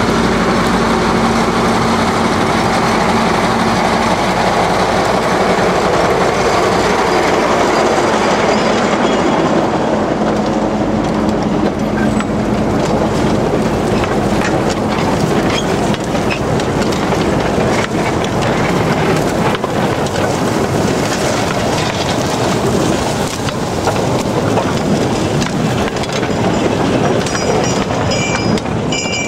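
Small narrow-gauge diesel locomotive running past with a steady engine drone for the first few seconds, followed by a train of loaded sugar-cane wagons rolling by, its wheels clattering and clicking over the rail joints. A thin wheel squeal comes in near the end.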